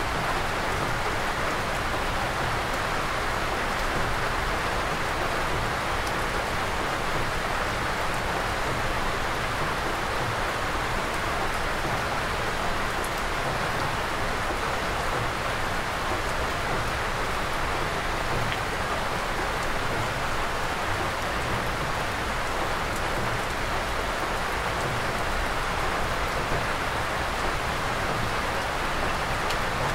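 Steady rain, an even hiss with no let-up, heard from under the eaves of an old wooden monastery.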